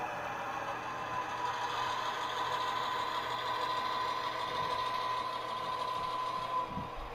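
HO scale model freight train running slowly along the track, its cars rolling with a steady mechanical hum and a thin whine, and a soft knock near the end.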